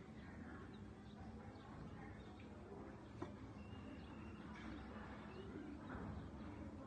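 Faint cockatiel chirps over a low steady hum, with a single sharp click about three seconds in.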